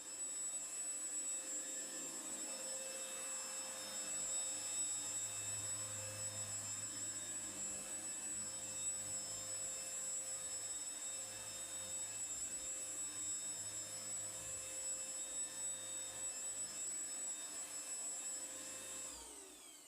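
Cordless eufy HomeVac stick vacuum running steadily with a high whine. Near the end it is switched off and the motor winds down.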